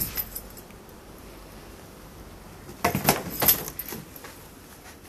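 Hard-shell suitcase packed with poker chip sets being handled and stood upright on carpet: a short cluster of knocks and rattling about three seconds in, after the last of its drop fades at the start.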